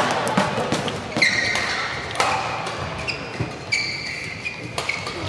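Badminton doubles rally: sharp cracks of rackets hitting the shuttlecock, mixed with short high squeaks of court shoes as the players move.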